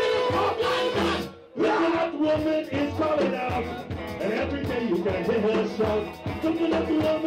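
Live calypso band playing an instrumental stretch between sung verses, with drums, bass and a melody line over a steady beat. The whole band stops for a moment about a second and a half in, then comes back in.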